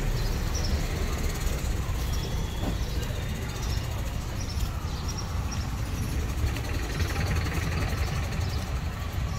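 Steady low engine rumble of motor vehicles amid general street noise.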